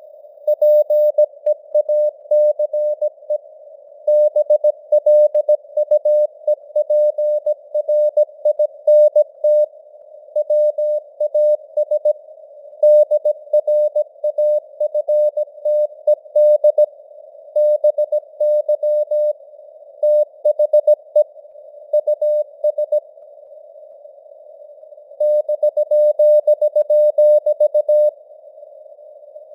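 Morse code at 17 words per minute: a single steady tone keyed on and off in dots and dashes, sitting in a bed of simulated radio-noise hiss, with a longer pause between words about three-quarters of the way through.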